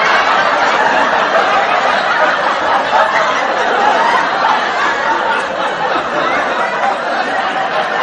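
An audience laughing together: many overlapping laughs and voices, steady and dense, easing off a little toward the end.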